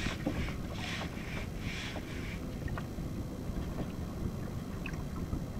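Wind buffeting the microphone and water lapping around a kayak. There is a run of short hissing swishes in the first couple of seconds, then a few faint ticks.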